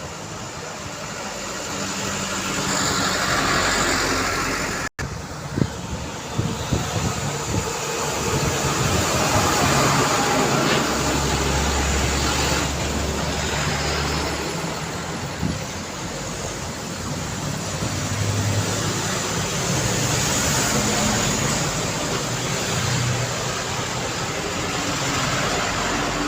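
Steady city road traffic heard from the roadside, with vehicles passing one after another. A heavy vehicle's low engine drone stands out for a few seconds about halfway through, and the sound cuts out for an instant about five seconds in.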